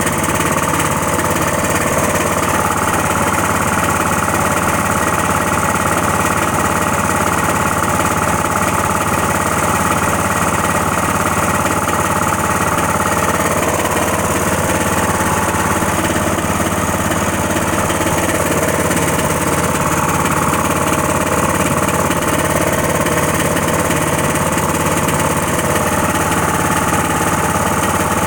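Cub Cadet tractor engine running steadily, a motor the owner calls bad.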